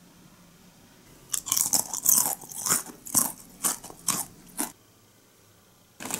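A crisp, ribbed ribbon-shaped fried snack being bitten and chewed: a quick series of loud, sharp crunches starting a little over a second in and stopping after about three and a half seconds. Right at the end, a packet of popcorn starts pouring onto a plate.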